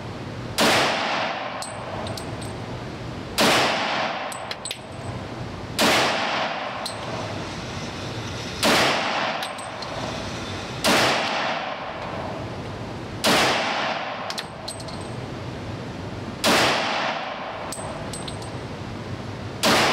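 Glock 32 Gen 4 pistol in .357 SIG fired eight times in slow, aimed single shots, one about every two and a half to three seconds, each echoing briefly. Light metallic clinks follow each shot, from the ejected brass landing.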